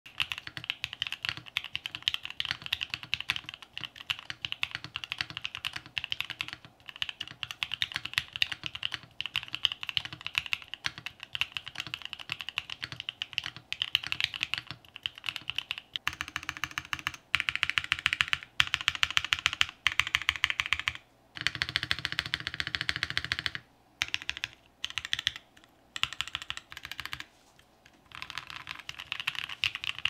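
Continuous fast typing on an Odin Aurora65 mechanical keyboard with a carbon fiber plate and lubed NK Cream switches: a dense run of key clacks, with a few brief pauses in the second half.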